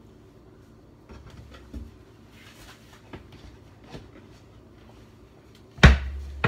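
Light kitchen handling noise, a few soft clicks and a brief rustle, then a single sharp knock near the end that dies away in a dull boom.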